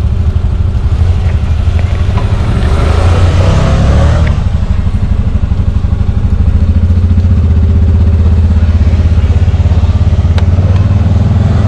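Small off-road vehicle engine running steadily close by, with a rushing noise swelling over it about two to four seconds in.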